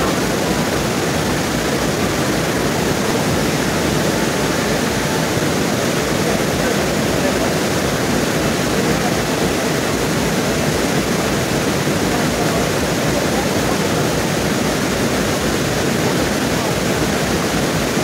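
Waterfall rushing: a loud, steady noise of water pouring over rocks into a pool.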